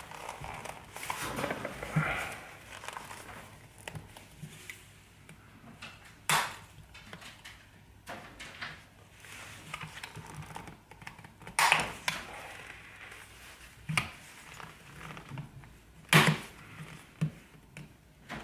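Plastic clips on the Anker Soundcore Life Q35 ear pad's frame snapping off the earcup housing as a blade is pried around the pad: several sharp clicks spread through the second half, with light handling and scraping between.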